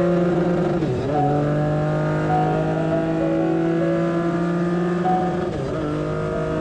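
Race truck engine heard from inside the cockpit, running hard and steady under load. Its pitch dips briefly twice, about a second in and again a little past five seconds.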